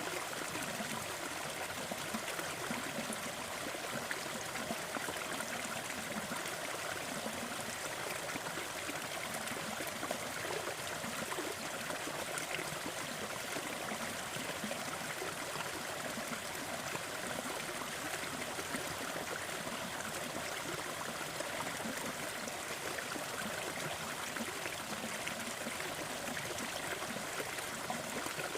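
Gentle forest waterfall: water falling and splashing steadily into a stream, an even, unbroken rush.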